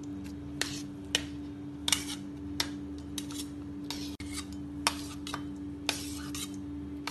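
A steel spoon clinks and scrapes against a steel bowl and glass as chunks of watermelon are spooned into the glass, in a dozen or so irregular short clicks. A steady low hum runs underneath.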